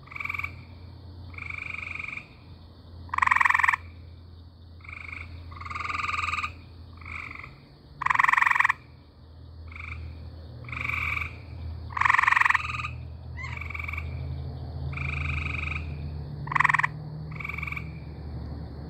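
Frog calling: about fifteen short trilled calls, irregularly spaced, the loudest ones very close and others fainter. A steady low hum runs underneath.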